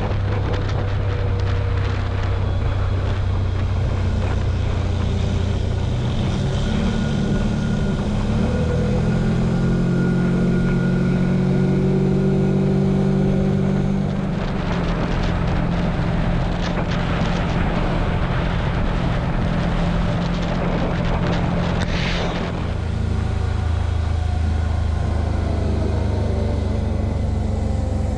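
TGB Blade 1000 quad's engine running under way, heard from on board, with a steady rush of wind and road noise. The engine note steps up and down a few times as throttle and speed change, dropping clearly about halfway through and again about three quarters in.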